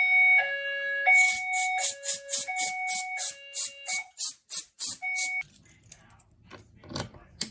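Fire alarm notification appliance sounding a two-tone hi-lo alert, switching between a higher and a lower pitch about every 0.7 s, with a rapid pulsing rattle of about three beats a second over it from about a second in. It cuts off after about five seconds, followed by a low hum and a single thump near the end.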